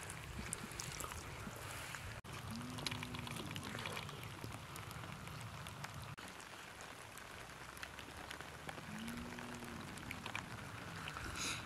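Quiet open-air ambience: a steady hiss with scattered light ticks, and twice a short call that rises and falls in pitch from grazing livestock, about three seconds in and again about nine seconds in.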